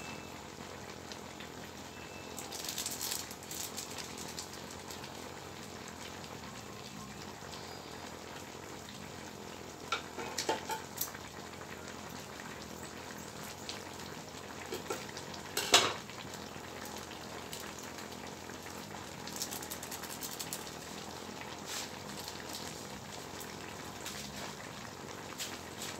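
Mixed vegetables simmering in a little liquid in a wok, a steady bubbling and sizzling. A few sharp pops come about ten seconds in, and one louder pop about sixteen seconds in.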